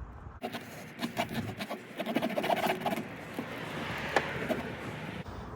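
Tire plug insertion tool being forced into a puncture in the tire tread, making a scraping noise with scattered clicks as the plug resists going in.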